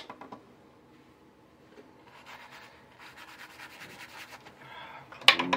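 Paintbrush scrubbing back and forth on watercolour paper to lift and soften the paint: a fast, fine scratchy rubbing that starts about two seconds in. There is a sharp tap at the start and a louder burst near the end.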